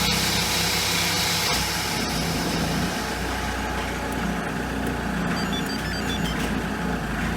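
SsangYong Kyron's 2.0-litre four-cylinder turbodiesel idling steadily, just after being started by the alarm's remote autostart, a sign that the autostart has worked.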